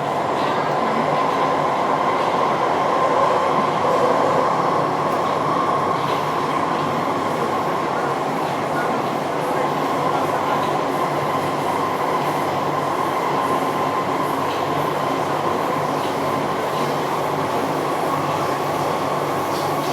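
Subway train car running between stations: steady rumble of wheels and motors with a constant high-pitched whine held on one note, the weird sound heard in this car.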